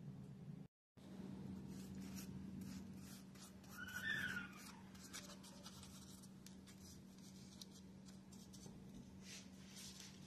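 Paintbrush strokes brushing Mod Podge glue over tissue paper on a plastic planter, a faint repeated scratchy brushing over a steady low hum. A brief squeak about four seconds in.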